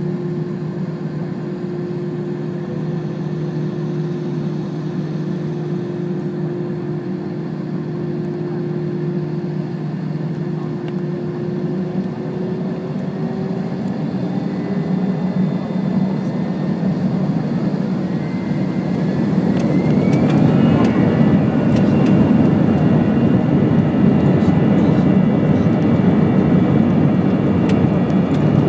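Airbus A321-200 jet engines running with a steady low hum, then spooling up about two-thirds of the way in: a rising whine and a louder, fuller roar as they reach takeoff thrust.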